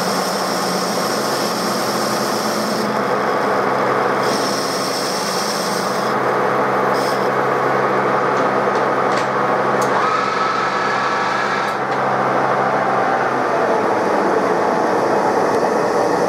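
TOS SN63B metal lathe running steadily with its spindle and gearbox humming, while a carbide insert takes a light finishing cut on a turned wheel hub. The cut ends partway through, leaving the lathe turning on its own.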